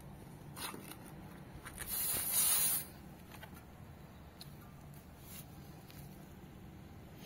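A short burst of hissing air escaping from a bicycle tyre valve, about two seconds in, as the inflator's hose connector is screwed onto it. Small handling clicks and rustles come before and after.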